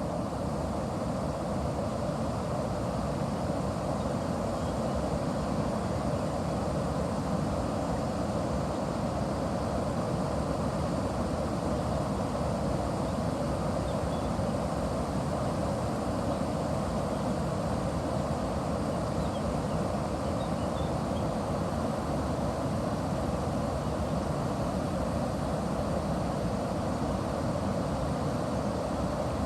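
River water rushing steadily past a watermill, an even low rush with no change in level.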